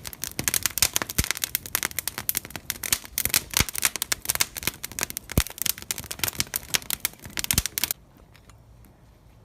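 Wood fire crackling with dense, rapid pops and snaps, cutting off abruptly about eight seconds in, after which only faint scattered clicks remain.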